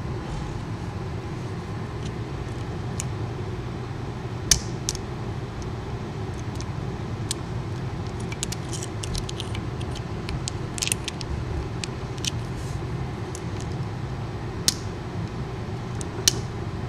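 Lock picks and a tension tool working the rings of a Wise-Lock ring padlock: scattered small metallic clicks and ticks, a few sharper single clicks and a busier run of them midway, over a steady low background hum.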